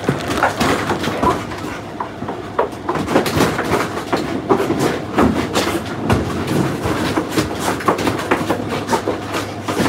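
Continuous clattering and rattling with many quick knocks, from a bulldog scrabbling and moving about in its kennel.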